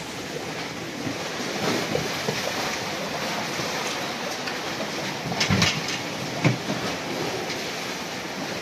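Storm-driven sea water churning and splashing against a quay and a swamped wooden boat, a steady rushing wash with a few sharp knocks a little past halfway.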